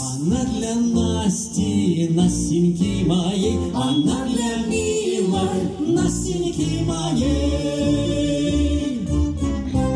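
A live band with electric guitars and keyboard playing a song, with a voice singing a melody line over it and no clear words. About seven seconds in the singing gives way to long held keyboard chords.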